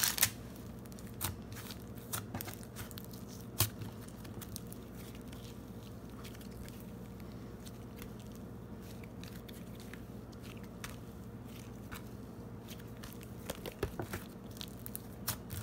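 Brown slime with Daiso clay mixed in, pulled and squeezed by hand: a sharp crackling tear right at the start, then scattered sticky pops and clicks, growing thicker near the end as the slime is folded.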